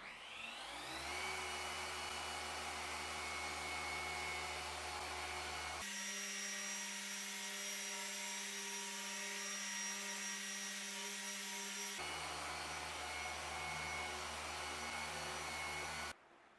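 Electric machine polisher spinning up and running steadily on car paintwork during paint correction. Its tone changes abruptly twice, then it cuts off near the end.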